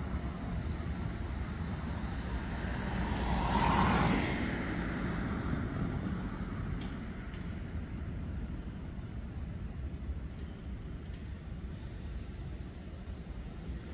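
City street traffic: a steady low hum of road traffic, with one car passing close about four seconds in, its tyre and engine noise swelling and then fading.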